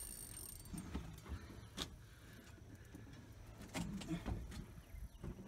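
Scattered light knocks, clicks and rattles of fishing and harpoon gear being handled on a boat, over a low steady rumble.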